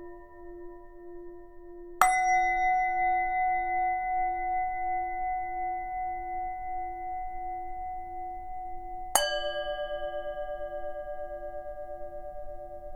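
Tibetan singing bowls struck twice, about two seconds and about nine seconds in, at two different pitches. Each strike rings on and slowly fades, over a lower bowl tone that pulses steadily underneath.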